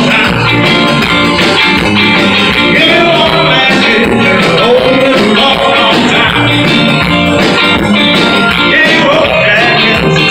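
Live amplified band playing: two electric guitars and an electric bass over a steady beat.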